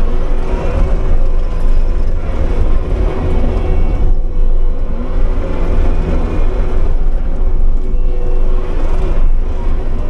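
Kubota SVL75-2 compact track loader's diesel engine running under load while it drives a Bobcat Brush Cat rotary brush cutter through grass, heard from inside the cab: a loud, steady drone. The higher part of the sound eases briefly about four seconds in and again near nine seconds.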